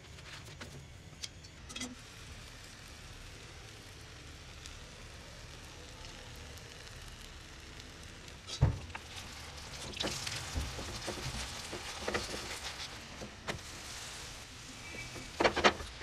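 Besan chilla frying in oil in a non-stick pan: a steady sizzle with crackling spatters that grows livelier about ten seconds in. A single sharp knock a little past halfway and a quick cluster of clicks near the end stand out above it.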